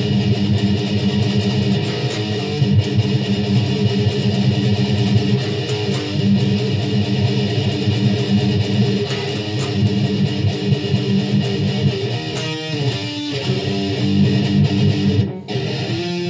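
Distorted electric guitar through a 75-watt Line 6 Spider amp, playing a fast riff of rapidly picked, heavy low notes. From about three quarters of the way in the notes come more spaced out, and near the end the low notes drop away, leaving a few higher ringing notes.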